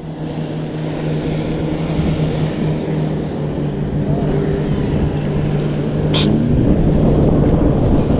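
An engine running at a steady pitch, which rises about six and a half seconds in as it speeds up, with a growing rush of noise.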